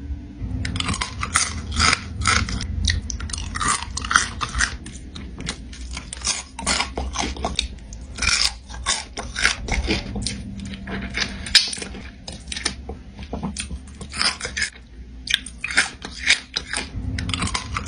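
Whole seasoned baby crabs being bitten and chewed, shells and all, in repeated bursts of loud crunching with short pauses, over a low steady hum.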